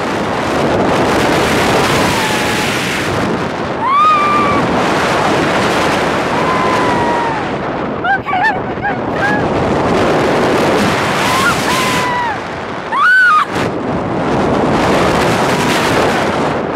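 Loud wind rushing over the microphone of a paraglider in tight turns. Several high, gliding cries break through it: one about four seconds in, a quick cluster of short ones midway, and two more near the end.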